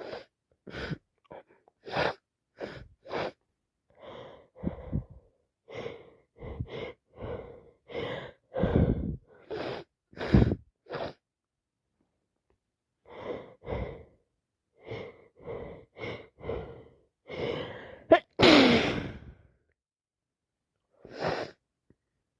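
A woman with a heavy head cold sniffing and breathing in many short bursts through a blocked, running nose, with one loud sneeze about 18 seconds in.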